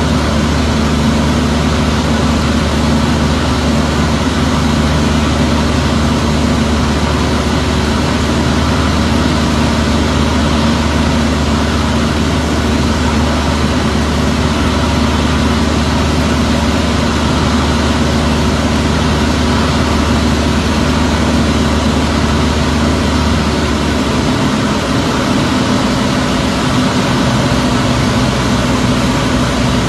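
Piston engine and propeller of a single-engine light aircraft droning steadily in cruise flight, heard inside the cockpit. The low part of the engine note shifts a little about three-quarters of the way through.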